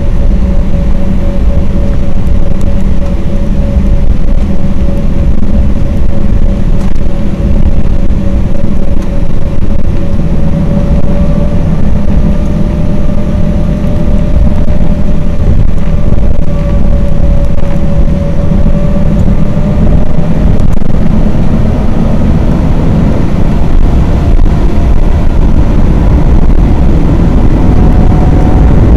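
Embraer E-190's twin GE CF34 turbofan engines heard inside the cabin over the wing: a steady low rumble with a whine. In the last several seconds the whine begins to rise in pitch as the engines spool up for takeoff.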